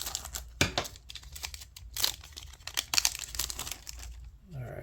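Foil booster pack wrapper crinkling and tearing as it is handled and ripped open, with irregular crackles.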